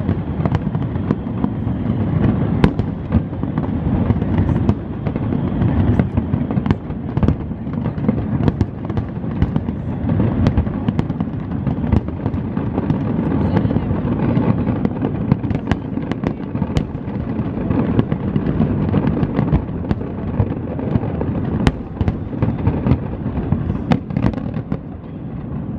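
Large aerial fireworks display going off without pause: a dense, continuous rumble of many shell bursts, with sharp cracks and bangs scattered throughout. It eases briefly near the end.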